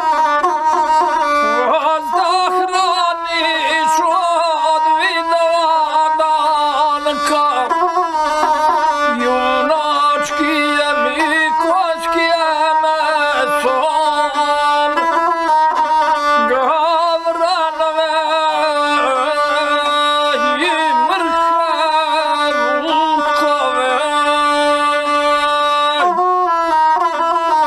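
Gusle, the Balkan single-string bowed fiddle, playing a continuous, nasal, heavily ornamented melody that wavers around a narrow range of pitches, the traditional accompaniment to South Slavic epic singing.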